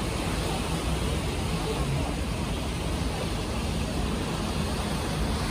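Steady low engine rumble under a constant rush of wind and water noise.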